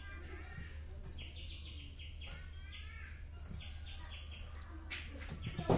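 Small birds chirping in quick repeated trains of short, high notes over a steady low hum, with a single louder knock near the end.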